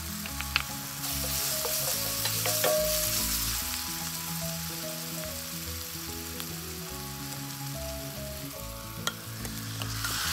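Chopped onion and garlic sizzling in oil in a stainless steel wok, the sizzle growing louder about a second in. A wooden spatula stirs and clicks a few times against the pan. Quiet background music plays underneath.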